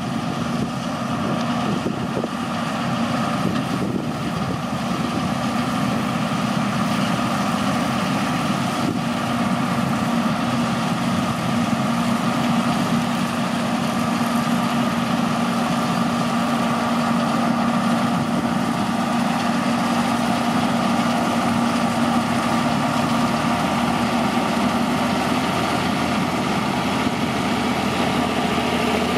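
John Deere 975 combine harvester working through barley: its diesel engine and threshing machinery run steadily, with a constant hum.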